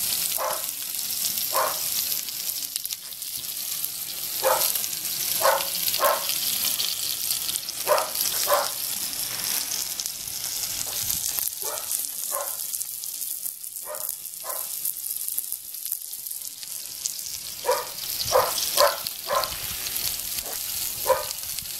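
Chicken pieces sizzling on a V-channel Argentine grill grate over a live fire, a steady high hiss. Short barks break in repeatedly, in twos and threes.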